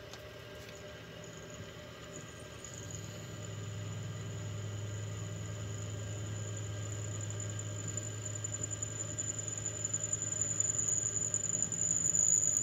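5 mm twist drill squealing as it cuts into mild steel in a mini mill, over the low hum of the mill running. The high, thin squeal grows louder and cuts off suddenly near the end.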